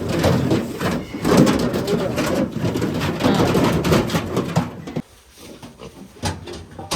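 Pigs grunting and jostling in a pen; the noise drops off suddenly about five seconds in.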